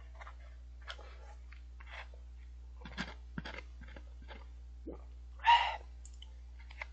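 Eating sounds from a cup of instant noodles: scattered light clicks of wooden chopsticks against the styrofoam bowl and soft chewing, with one louder short slurp near the end.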